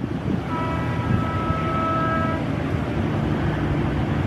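Streetcar running on its rails nearby: a steady low rumble, with a high-pitched whine of several tones from about half a second in that lasts about two seconds.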